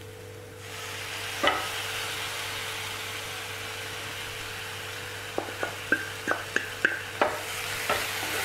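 Thick spice paste sizzling as it goes into hot oil and fried onions in a nonstick pan, with a single knock about a second and a half in. From a little past halfway, a wooden spatula stirring and tapping against the pan, two or three taps a second.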